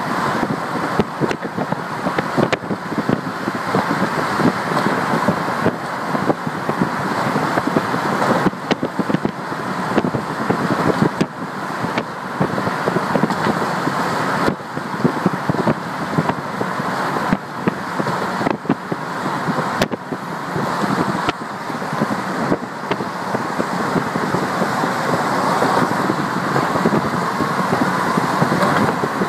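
Steady road and traffic noise of a car driving along the Highway 99 viaduct, heard from inside the car, with small crackles throughout.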